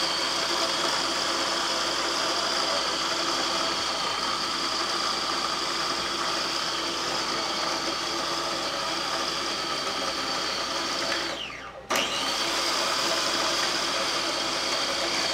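Electric food processor motor running steadily as it purees bananas into a thick mixture. About eleven seconds in it winds down, falling in pitch, and after a brief pause it starts again at full speed.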